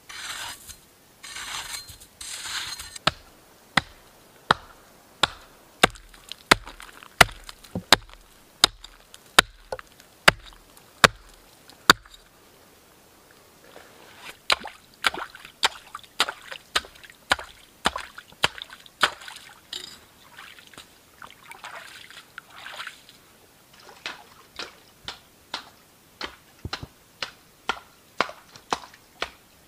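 Repeated sharp chopping knocks, about one every half second, in two runs with a short pause near the middle. The blows in the first run are the loudest, with softer scraping between the strikes.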